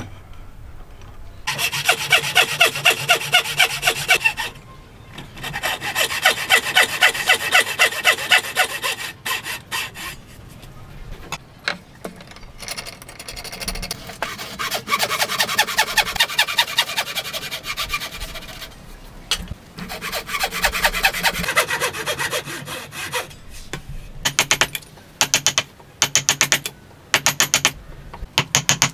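Hand saw cutting through a timber beam in quick back-and-forth strokes, about three a second, in several runs of a few seconds each with short pauses between. Near the end come a series of separate sharp knocks as a chisel is struck to chop out the waste between the saw cuts.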